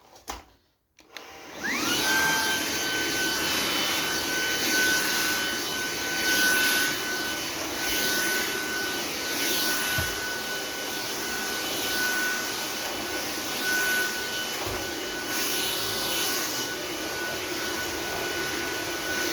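Sauber Technic stick vacuum cleaner switched on: its motor whines up to speed about a second and a half in, then runs steadily with a high whine over the rush of air.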